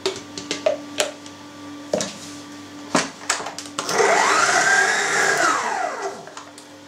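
Stand mixer motor switched on about four seconds in, its whine rising in pitch and then falling away as it works the sausage mince. Before it starts, a few sharp knocks and clinks.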